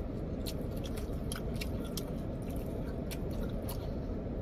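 Close-up chewing and biting on sauced chicken wings: irregular wet mouth clicks and smacks over a steady low background hum.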